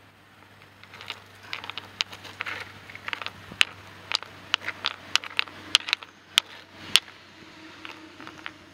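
A hand-held stone knocked and rubbed against a reddish rock on gritty concrete: a string of sharp, irregular clicks over several seconds, with gritty scraping between them.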